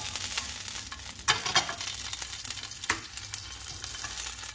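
A prawn sizzling in a little oil in a nonstick frying pan, a steady high hiss. A utensil turning it knocks and scrapes against the pan about four times.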